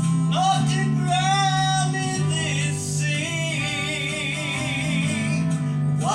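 A gospel song being sung with guitar accompaniment. The voices hold long notes with a wavering vibrato over steady low notes.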